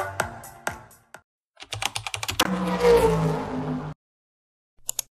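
Electronic music with a beat fades out in the first second, then intro sound effects follow: a quick run of keyboard-typing clicks, a loud whoosh falling in pitch that cuts off suddenly, and a few more typing clicks near the end.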